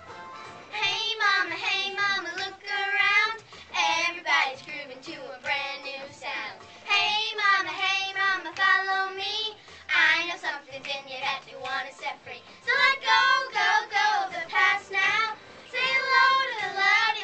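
Group of children singing a show tune together over backing music, in phrases that swell and pause every second or two.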